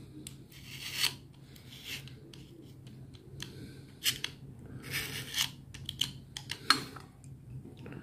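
A utility knife blade scraping at the edge of a ceramic Peltier module, in short irregular scrapes with small clicks in between.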